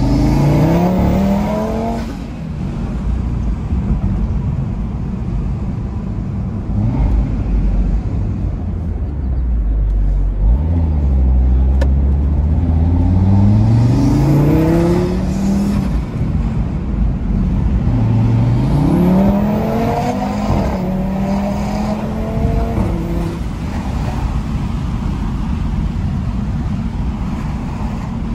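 2018 Audi RS3's turbocharged five-cylinder engine with an open intake, heard from inside the cabin, pulling hard three times: each time the engine note climbs steadily in pitch and then drops at a gear change, with steadier cruising in between.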